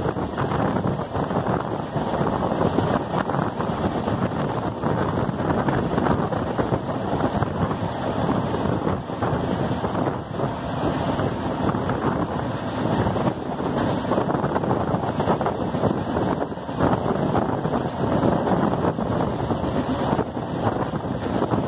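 Rushing wind on the microphone over the steady running noise of a passenger train's coaches rolling along the rails at speed, the level wavering with the gusts.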